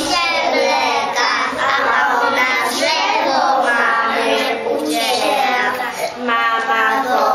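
A group of young preschool children chanting together in Polish, their voices overlapping in a steady, sing-song rhythm, as in a recited rhyme or a simple song.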